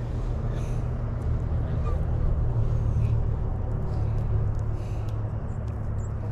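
Low engine rumble with a steady hum that swells about two seconds in and slowly eases off, like a motor vehicle passing, with a few faint clicks over it.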